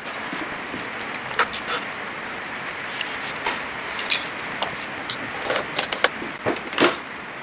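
Hand tools and loose metal parts clinking and knocking against a stripped classic Mini engine block: a dozen or so sharp clicks and clanks, irregularly spaced, over a steady hiss.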